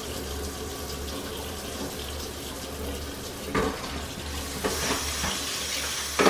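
Kitchen tap running into a sink, a steady splashing hiss that turns brighter a little past halfway, with two short knocks before that.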